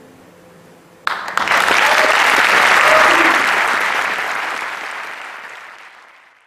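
Concert audience breaking into applause about a second in, after the last note of the piece has died away; the applause swells, then fades out near the end.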